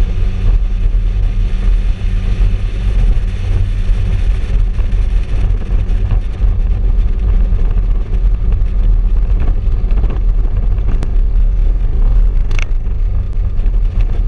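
Motorboat running steadily at speed: a constant low engine drone with wind rushing over the microphone.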